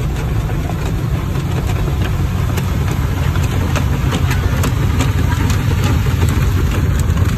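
Automatic tunnel car wash heard from inside the car's cabin: water jets spraying over the windshield and cloth brushes scrubbing the body, a loud, steady rumble.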